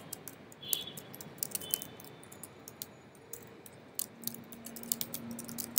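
Typing on a computer keyboard: irregular keystroke clicks, quick at first, then fewer and further apart.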